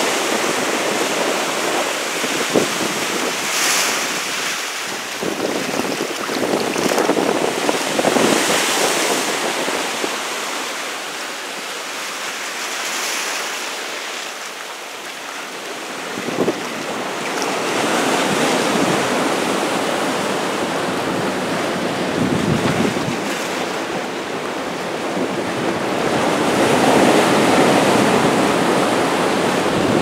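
Atlantic surf breaking and washing in foam over shoreline rocks, a steady rush that swells and eases as each wave comes in.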